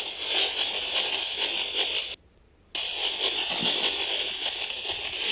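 Spirit box radio static, a steady hiss that cuts out for about half a second just after two seconds in.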